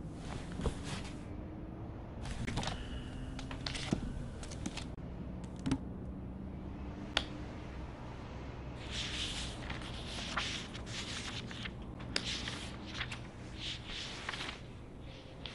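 Rustling and handling of a book's paper pages, in irregular bursts, with a few sharp clicks and a low steady hum underneath.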